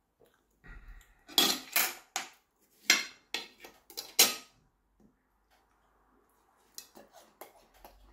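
Utensil clinking and scraping against a plate of cut watermelon: a quick run of sharp clinks from about a second in, lasting about three seconds, then a few fainter taps near the end.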